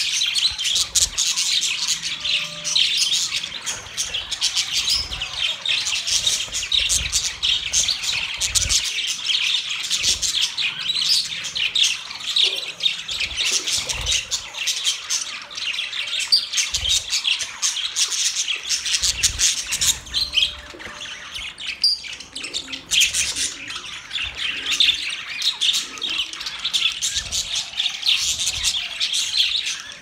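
A flock of budgerigars chattering and chirping without a break, with occasional brief low thumps.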